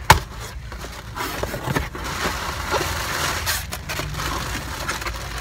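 Cardboard shipping box being torn open by hand: a sharp crack at the start, then irregular bursts of tearing and rustling cardboard and packaging.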